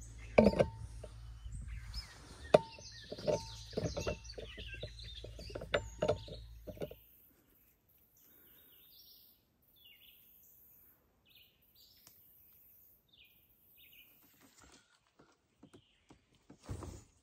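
Knocks and clinks of a large insulated water jug and its lid being handled on a truck tailgate, over a low steady hum. About seven seconds in this stops, leaving faint scattered bird chirps.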